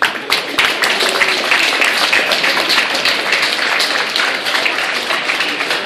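Audience applauding: a dense patter of many hands clapping that starts abruptly and carries on steadily.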